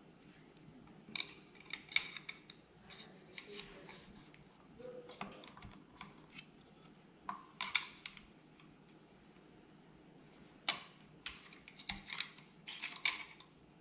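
Scattered light clicks and scrapes of steel parts being handled and fitted into a Browning BAR Mark 3 rifle's action during reassembly, coming in small clusters with quiet gaps between them.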